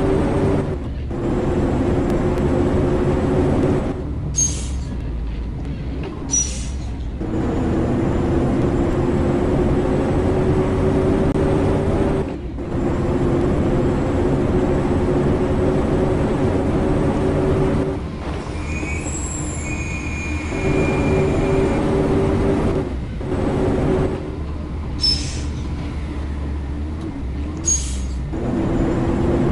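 A train running with a steady hum, which breaks off abruptly several times. Brief high-pitched squeals come about two-thirds of the way in.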